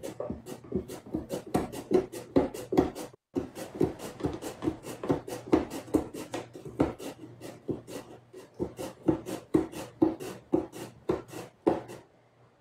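Raw potato pushed back and forth over a plastic mandoline slicer's blade, cutting thin chip-like slices: a quick run of scraping strokes, about two to three a second, with a short break about three seconds in and stopping near the end.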